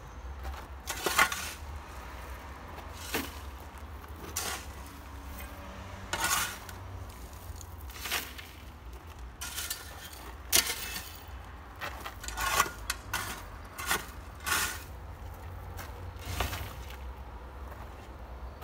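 Metal shovel blade scraping and scooping across gravelly soil and debris, a sharp stroke every second or two.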